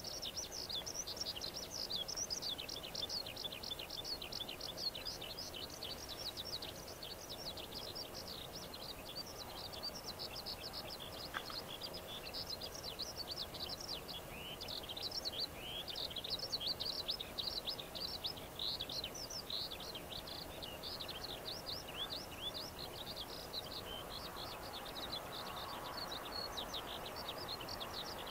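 Small birds chirping in a steady stream of short, high calls, many falling in pitch. Near the end the faint sound of an approaching electric-hauled container freight train rises underneath.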